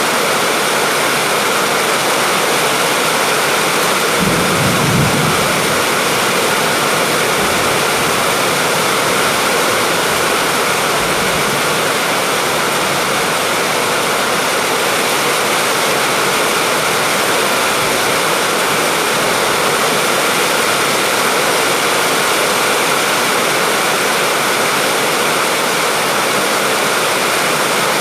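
Steady, even rain noise, with a brief low rumble about four seconds in.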